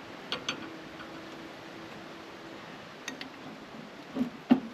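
Scattered light metallic clicks and knocks of tools and carburetor parts being handled while the carburetor is taken off the engine. There are a couple of clicks early, two more about three seconds in, and heavier knocks near the end, the loudest just before it ends.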